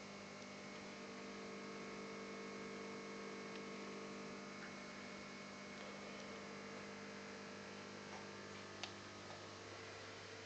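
Faint, steady electrical hum with a few light ticks.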